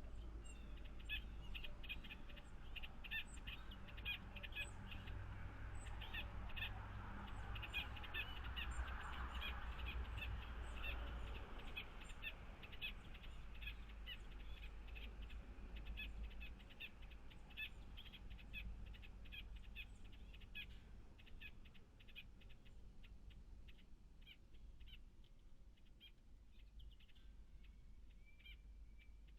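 Small birds chirping, a dense run of short, quick calls that thins out after about twenty seconds, over a faint low rumble.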